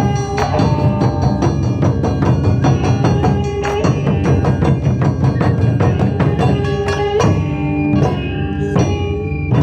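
Live Japanese taiko drumming: drums struck in a rapid, dense rhythm with a melody line held over them.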